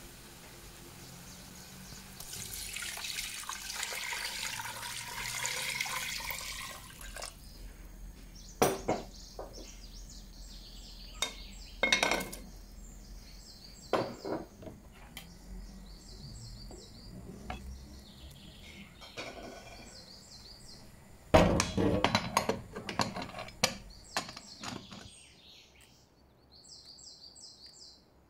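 Water poured into a stone-coated pan over meat and spices, an even splashing rush for about five seconds. It is followed by several separate knocks and splashes and, about three quarters of the way through, a burst of clattering pots and utensils. Faint bird chirps come near the end.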